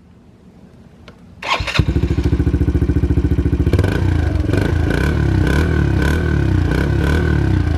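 Yamaha Raptor 90 ATV's small single-cylinder engine on its stock exhaust and muffler: it is started about a second and a half in, idles briefly, then is revved a few times.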